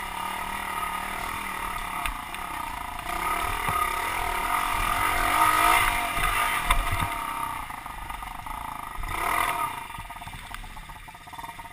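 Small single-cylinder pit bike engine, an SSR 110, revving up and down as it is ridden along a dirt trail. It is loudest around the middle, gives one quick blip near the end, then eases off.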